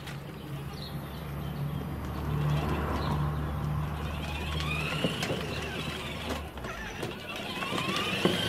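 Battery-powered ride-on toy Ford Ranger driving over brick pavers: its electric drive motors give a steady low hum, and its plastic wheels click and knock over the paving. The motor hum stops about six and a half seconds in.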